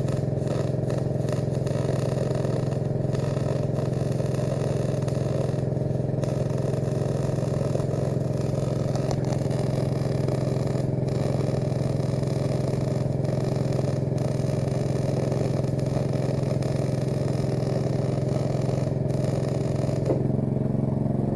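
MIG welding arc crackling steadily on a constant-current engine-drive welder, wire feed turned up a little, over the welder's engine running at a steady speed. The arc stops about 20 seconds in while the engine runs on.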